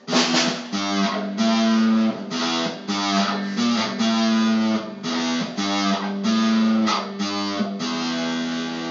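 Guitar playing a run of chords, each struck sharply and left to ring, about one or two a second.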